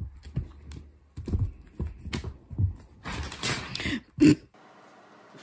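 A kitten pouncing and scrabbling on a cushioned couch and blanket: irregular soft thumps and taps, with one louder knock about four seconds in, then they stop abruptly.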